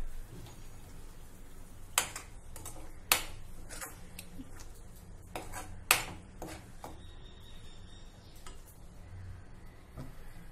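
Metal utensils clinking against a cooking pan: three sharp clinks with several softer knocks between them.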